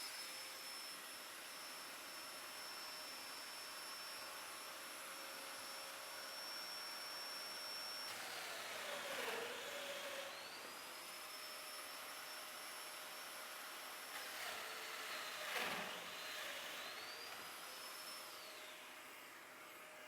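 Domino joiner's motor running with a steady high whine while cutting mortises in a wooden stair stringer. Its pitch dips and recovers twice, then winds down near the end.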